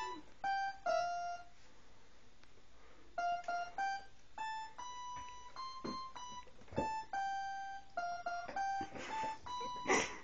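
Electronic keyboard played one short note at a time, with a pause of about a second and a half after the first second before the notes resume. A sharp knock near the end is the loudest sound.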